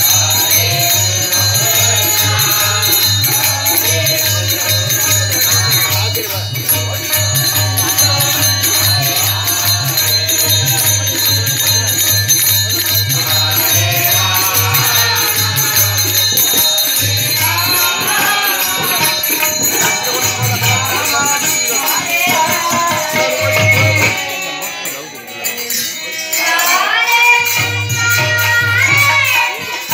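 Indian devotional folk music: a harmonium and a male voice over a tabla, with a steady jingling rattle of small hand percussion keeping the beat. The low drum strokes drop out briefly about two-thirds of the way through, and the singing comes forward near the end.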